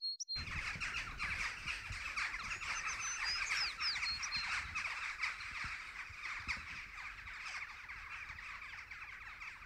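Outdoor ambience of many small birds chirping and calling together, with one songbird's high whistled phrase of falling notes about three to four seconds in and a low rumble beneath; it starts abruptly and eases slightly towards the end.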